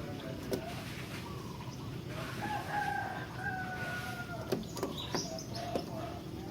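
A rooster crowing: one long, drawn-out crow starting about two seconds in and tailing off slightly in pitch. A few sharp clicks and a brief high bird note come near the end.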